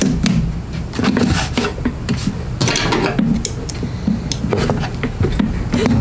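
Metal hand tools clinking and scraping on the fittings of a Briggs & Stratton 190cc mower engine as parts are undone: a run of irregular clicks and knocks.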